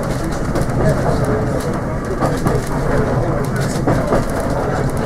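Steam railmotor No. 93 running along the line, heard from aboard the carriage: a steady rumble of wheels on rail with occasional clicks.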